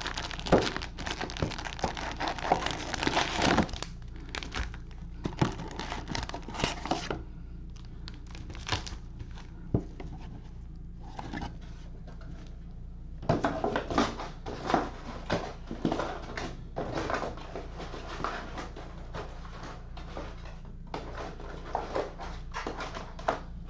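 Cellophane-wrapped trading card packs crinkling as they are handled and stacked, in irregular bursts with a quieter stretch in the middle.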